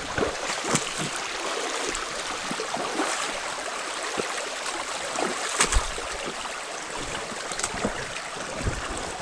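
Small creek flowing steadily over its bed. Scattered sharp knocks sound over it, the loudest about five and a half seconds in.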